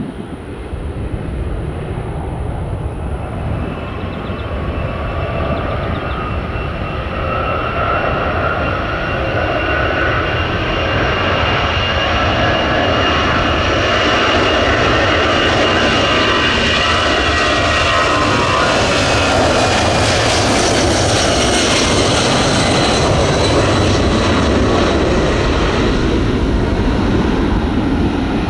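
Jet airliner's engines, a rumble with high whining tones, growing louder over the first dozen seconds and then staying loud as the whine shifts in pitch.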